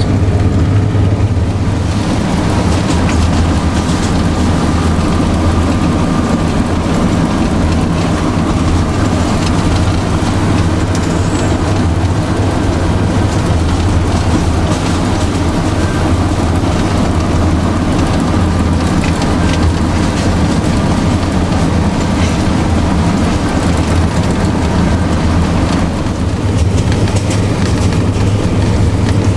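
TU7 narrow-gauge diesel locomotive's V12 diesel engine running steadily under load, heard from inside the cab, with the rumble and clatter of the wheels on the track as the loaded train rolls along.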